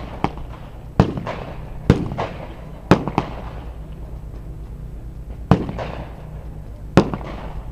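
A string of sharp bangs like shots, roughly one a second with a longer gap midway, each trailing off in an echo, over a steady low rumble.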